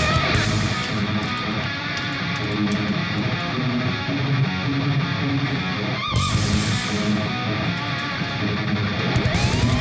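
Guitar-driven background music with strummed electric guitar and a steady rhythm, joined near the end by a rising whine.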